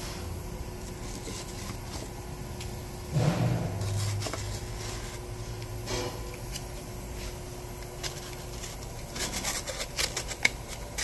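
Handling noises as a foam blank is set against a steel fixture on a manual lathe's chuck: a dull thump about three seconds in, a knock near six seconds, and a run of clicks and taps near the end, over a steady shop hum.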